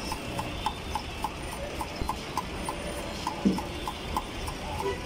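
Large knife chopping onion and green chillies on a chopping board: a quick, even run of knocks, about three to four a second, with one heavier thud about three and a half seconds in.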